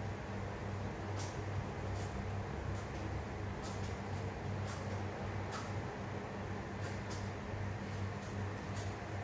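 Steady low machine hum, with faint light clicks every so often.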